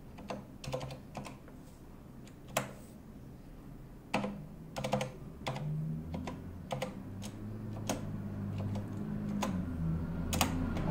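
Computer keyboard keystrokes: scattered, irregular key clicks as a username and password are typed at a login prompt.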